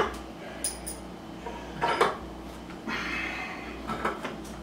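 Sharp knocks and clatter of wooden bunk-bed headboard parts and hardware being handled during assembly. The loudest is a single sharp click at the very start, then a knock about two seconds in and a short scraping rattle soon after.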